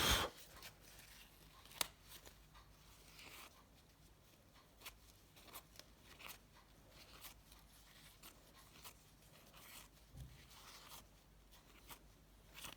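Faint, scattered rustles, light wiping and small clicks from hands cleaning a mobile phone's LCD screen, with a louder rustle right at the start and a sharp click about two seconds in.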